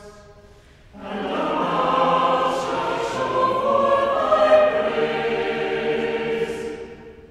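Mixed church choir singing one choral response in harmony, entering about a second in and dying away near the end.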